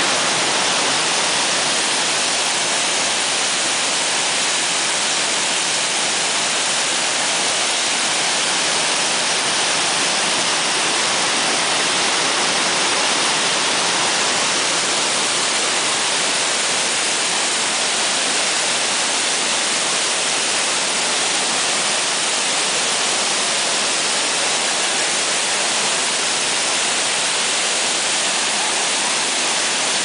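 Large waterfall pouring down steep rock slabs, heard close up at its base: a loud, steady rushing hiss that does not change.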